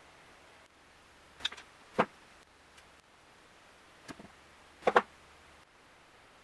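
Diagonal wire cutters snipping wire at a claw machine's solenoid coil: two sharp snaps about three seconds apart, each with a few lighter clicks just before.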